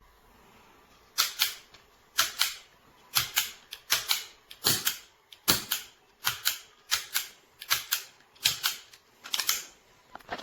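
Gonher toy cap-gun revolver being worked repeatedly: about a dozen sharp double clicks, each one the hammer cocking and then snapping down, repeating roughly once a second.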